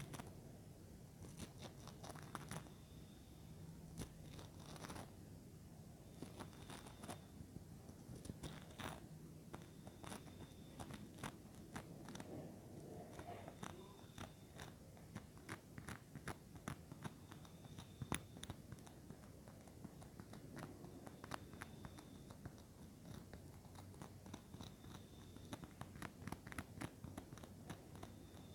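Soft, irregular clicks and crackles close up against a mini microphone, ASMR trigger sounds, over a low steady hum.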